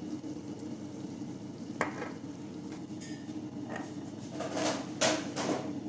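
Wooden spatula stirring chunks of meat and spices in a stainless steel pot, with a sharp knock about two seconds in and a run of scrapes against the pot near the end, over a steady low hum.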